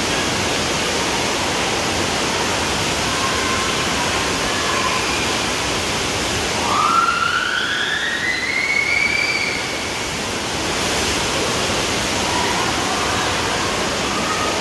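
Water rushing steadily around the bowl of a water slide and down its central funnel. About six and a half seconds in, a single long rising cry climbs in pitch for about three seconds, then levels off.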